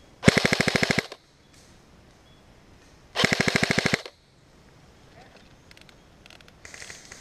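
Airsoft electric rifle (Echo1 AEG) firing two short full-auto bursts of rapid, evenly spaced shots, each under a second long and about three seconds apart. Fainter clicks of fire follow near the end.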